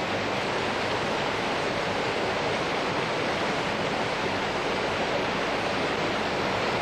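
River water rushing over a weir into churning white water: a steady, even noise.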